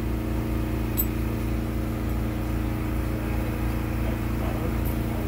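Steady low mechanical hum, like an idling engine or motor running nearby, with one light click about a second in.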